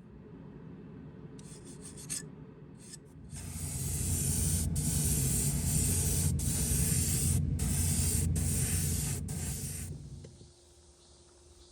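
A STYLE X KP35 double-action airbrush spraying paint. A few short puffs of air-and-paint hiss come first. About three seconds in, a long steady spray starts, broken by several brief pauses as the trigger is let off, and it stops near the end.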